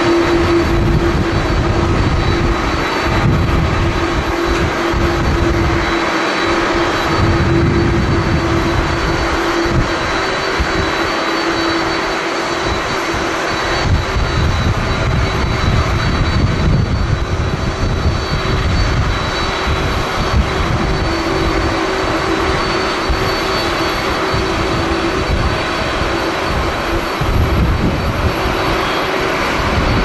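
Rolls-Royce Trent XWB jet engines of a Japan Airlines Airbus A350-900 running on final approach as it descends to the runway, with a steady low hum over the engine noise. Strong gusty wind buffets the microphone in uneven low rumbles.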